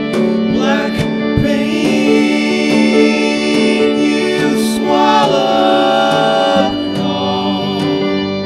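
A band playing an instrumental passage live: sustained chords and a wavering lead melody that bends in pitch about halfway through, over regular drum hits.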